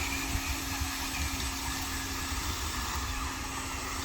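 A motor running steadily with a constant hum, which breaks off briefly about two and a half seconds in, over a steady noisy background and a low rumble.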